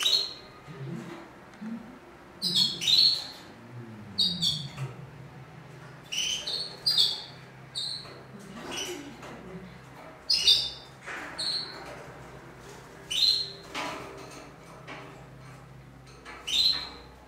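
Birds giving short, sharp, high chirping and squawking calls in irregular bursts, one or a few every second or two.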